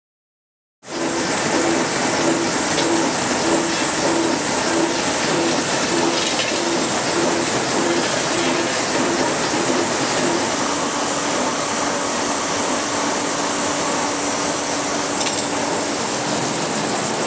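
Steam-driven sawmill machinery running, a loud steady rushing noise that cuts in abruptly about a second in. Over it a low tone pulses about three times every two seconds, then holds steady from about ten seconds in.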